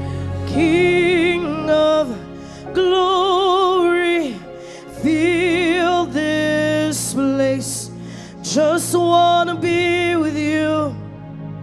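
Gospel worship music: a solo voice sings several long, held phrases with a wide vibrato over a sustained instrumental backing.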